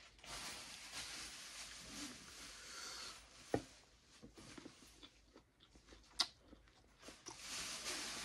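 Close-miked eating sounds: a person chewing a bite of burrito, with long breathy hissing through the mouth at the start and again near the end, and two sharp mouth clicks or smacks in between.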